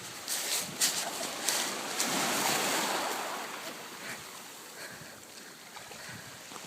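Ocean surf breaking on a beach, the wash swelling about two seconds in and then fading, after a few sharp splashing cracks at the start; wind buffets the microphone.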